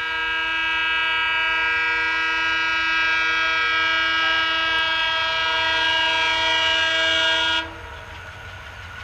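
Approaching diesel locomotive sounding its air horn in one long, steady blast of several notes at once. The horn cuts off suddenly near the end, leaving the low rumble of the oncoming train.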